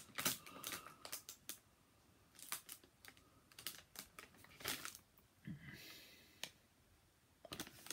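Food packaging being handled: scattered light clicks and crackles of plastic packets, with a short crinkle of a crisp bag about six seconds in.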